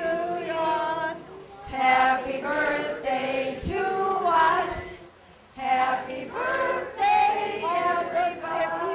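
A group of voices singing a song together in long, held notes, with a brief break about five seconds in.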